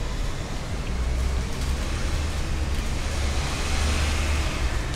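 Road traffic: a vehicle passing with a low rumble, its noise swelling to a peak about four seconds in.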